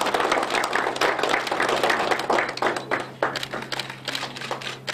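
Applause: many people clapping, a dense, irregular patter of hand claps, over a steady low hum.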